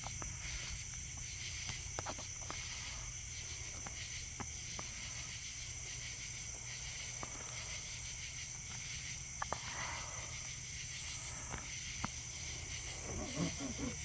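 Crickets chirping steadily, with a few faint sharp clicks.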